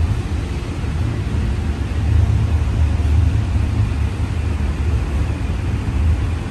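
CityLYNX Gold Line streetcar running along its track, heard from inside the passenger cabin: a steady low rumble with an even hiss over it.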